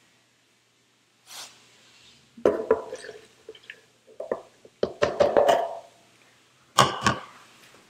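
Evaporated milk poured from a metal measuring cup into a blender jar of flour: a few irregular splashes and plops, then a couple of sharp knocks near the end as the cup is tapped against the jar.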